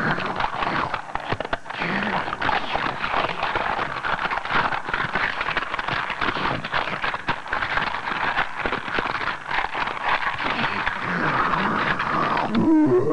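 A man's wordless vocal noises, cackling and growling, ending with a short gliding cry.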